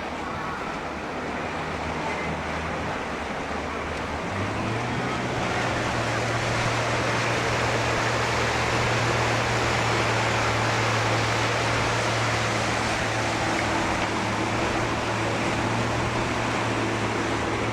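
Motorboat engine running as the boat pulls away under way, its low hum stepping up in pitch about four seconds in as the throttle is opened, then holding steady under a rushing noise of water and wind.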